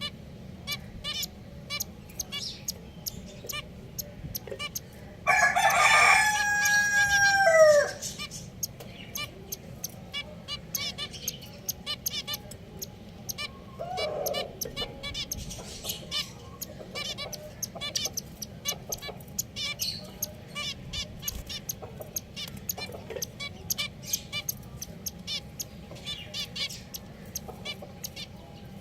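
Small pet finches chirping, with short high calls repeating rapidly throughout. About five seconds in, a rooster crows once for about two and a half seconds, the loudest sound, its pitch falling at the end.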